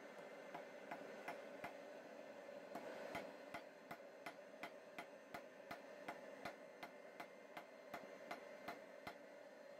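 Hand hammer striking a red-hot steel leaf on an anvil in short, evenly spaced blows, nearly three a second. The blows are short and dull rather than ringing, the anvil damped by a chain draped over it.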